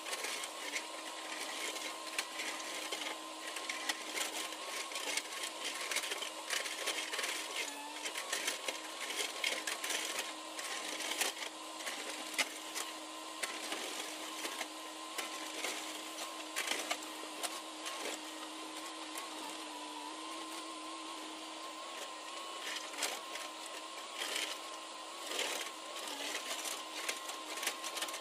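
JCB tracked excavator at work: its engine and hydraulics give a steady whine that dips briefly a few times under load, while the bucket scrapes down the cut slope and loose soil and stones clatter in frequent sharp knocks.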